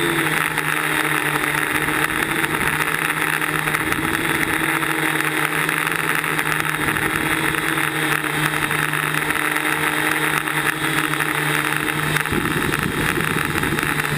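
DJI Flame Wheel quadcopter's electric motors and propellers whirring steadily, heard from the camera mounted on the craft, with a steady hum under the whir. About twelve seconds in the hum changes and a rougher low rumble comes in as the craft drops close to the snow.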